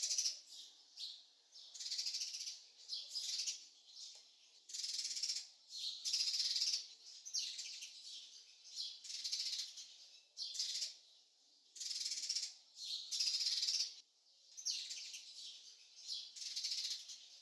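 Birds chirping in repeated short, buzzy high-pitched bursts, about one every second, with quiet gaps between.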